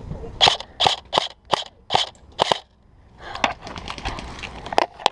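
Airsoft gun firing six single shots at a steady pace of about two or three a second, followed about a second later by a run of fainter, quicker pops and clicks.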